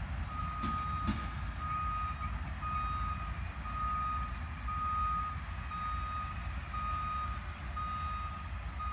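An electronic warning beeper sounds a steady series of short, same-pitched beeps, about one a second, over a low rumble from the railway scene.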